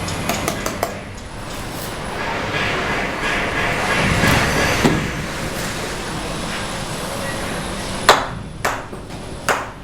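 Steel trowel striking cement bricks and mortar: a few light taps at the start, a scraping swell in the middle, then three sharp ringing knocks near the end.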